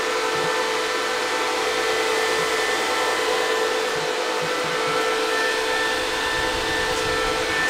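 Bitmain Antminer S19j Pro Bitcoin ASIC miner's cooling fans running: a steady rush of air with a high whine.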